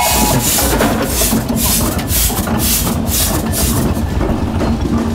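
Steam traction engine running as it is driven along, its exhaust steam chuffing in a quick, regular rhythm over a low mechanical rumble.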